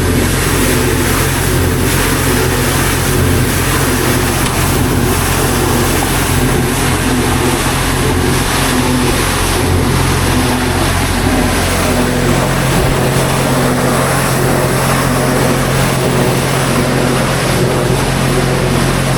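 Engine-driven pressure washer running steadily, its engine hum under a constant hiss; the engine note changes about two-thirds of the way through.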